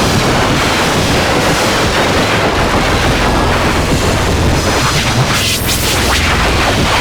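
Harsh noise music: a dense wall of distorted, full-range static at a constant loud level, with a shrill high-pitched sweep flaring briefly about five and a half seconds in.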